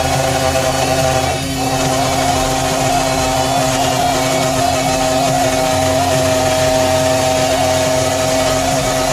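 Small electric spindle motor of a CNC 3018 Pro router running steadily at a constant speed, with a brief dip in level about one and a half seconds in.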